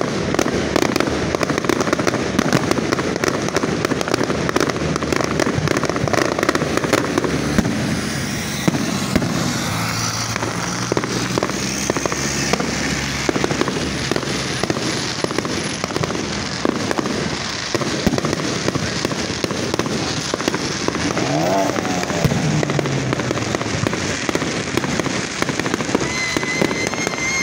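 Aerial fireworks display: a dense, unbroken barrage of shell bursts and crackling stars.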